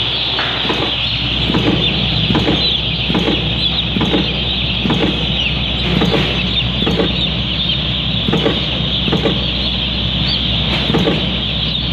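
A crowd of day-old chicks peeping continuously and shrilly, many calls overlapping. Underneath run a steady low hum and a soft knock that repeats about every two-thirds of a second.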